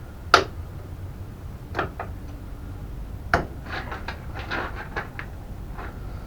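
Hand tools and metal parts knocking and clinking during work on a mobility scooter's front steering parts: a sharp knock about half a second in, two more near two and three and a half seconds, then a short run of lighter rattling clinks.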